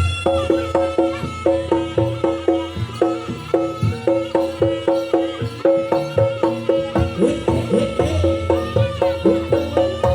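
Traditional Javanese jaranan ensemble music playing live: metal gong-chimes strike a quick, even two-note pattern over low drum beats.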